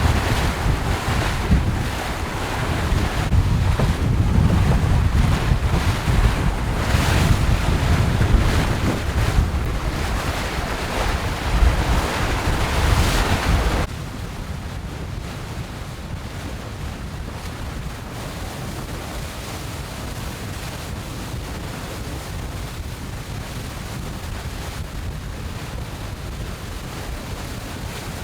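Wind and water rushing past a racing yacht under sail, with wind buffeting the microphone and gusty swells in level. About halfway through it drops suddenly to a quieter, steady rush of wind and sea.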